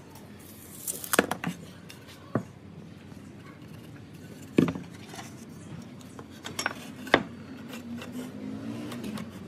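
Workshop handling sounds: a few sharp knocks and clinks as pine boards and hand tools are set down and shifted on a wooden workbench, the loudest knock about halfway through.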